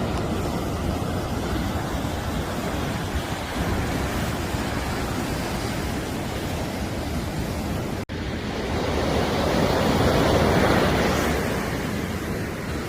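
Sea surf washing on a beach, a steady rush with wind on the microphone. The sound cuts out for an instant about eight seconds in, then a wave swells up and breaks.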